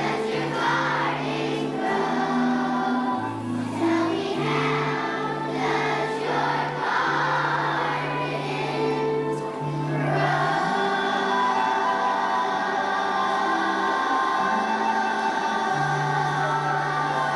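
Children's choir singing with instrumental accompaniment over steady bass notes, settling into a long held chord about ten seconds in.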